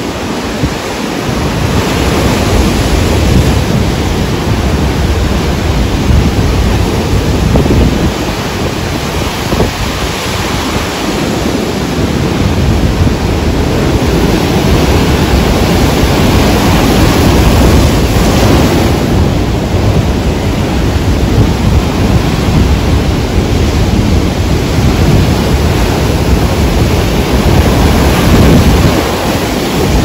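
Rough sea surf: heavy waves breaking and churning into foam in a loud, continuous rushing noise, with breakers swelling louder every several seconds.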